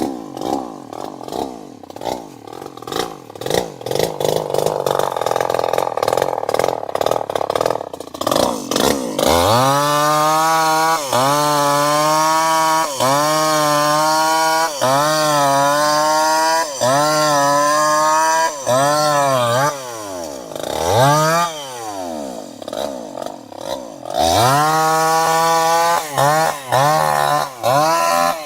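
Two-stroke chainsaw engine idling unevenly for several seconds, then revved again and again: each rev climbs in pitch, holds briefly and drops back, a little more than once a second. A couple of quick rise-and-fall blips come near the end before the revving resumes.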